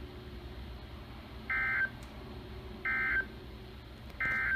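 Emergency Alert System end-of-message signal: three short, identical bursts of SAME digital data tones, about a second and a half apart, received over the radio, marking the end of the warning broadcast.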